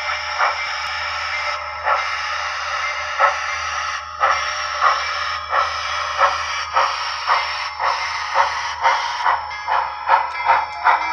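Digital steam-locomotive sound from a Soundtraxx Tsunami decoder, played through the small speaker in an HO-scale brass 2-8-2 Mikado. Exhaust chuffs quicken steadily as the model locomotive starts and gathers speed, from about one every second and a half to two or three a second, over a steady background hiss and hum.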